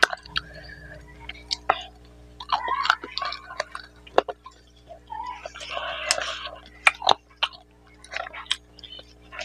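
Close-up eating sounds of a man eating rice and mutton curry by hand: chewing and lip smacks with many sharp clicks, and a couple of short wet shuffling stretches as fingers mix rice and curry on a banana leaf.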